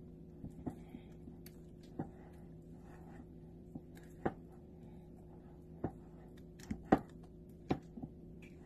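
Silicone spatula stirring thick batter in a glass bowl, with irregular soft knocks and scrapes as it strikes the bowl's side, one louder knock near the end. A steady low hum runs underneath.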